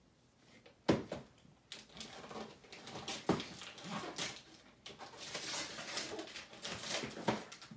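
Gift wrapping paper being torn and crinkled off a box, with a sharp knock about a second in and denser rustling and ripping over the last few seconds.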